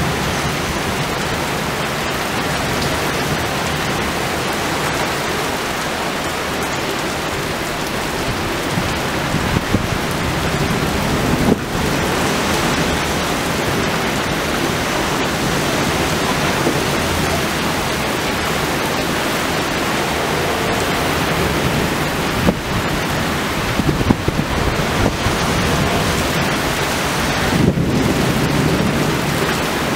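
Heavy rain pouring steadily in a severe thunderstorm, with thunder rumbling now and then.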